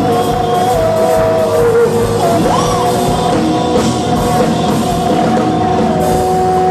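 Rock music: a singer holding long drawn-out notes over a band with a steady drum beat.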